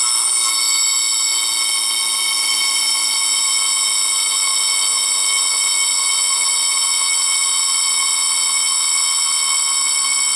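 Vintage Bueche Girod miniature mechanical wind-up alarm clock with its alarm going off, ringing loud and steady without a break.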